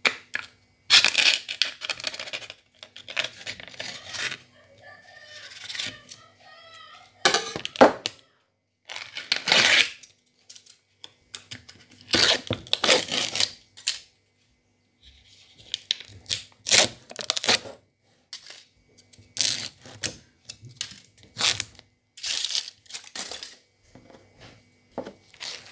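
Repeated short bursts of crackling and rustling as bread is handled and torn apart close to the microphone, done as ASMR.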